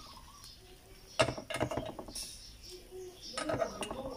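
A metal utensil clinking and scraping against the cups of an electric takoyaki-style pan as baked quail eggs are lifted out. There are two short runs of clinks, about a second in and again about three and a half seconds in.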